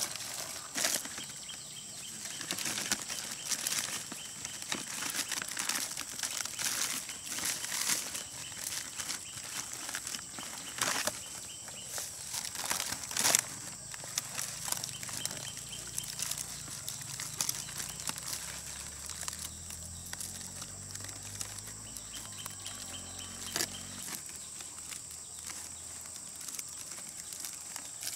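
Stiff fan-palm leaves and grass rustling and crackling as they are handled and folded by hand, in irregular bursts with a few sharper snaps, the loudest about 13 seconds in.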